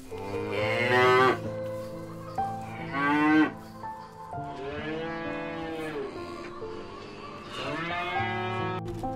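Cows mooing: four calls, the third the longest, its pitch rising and then falling, over soft background music.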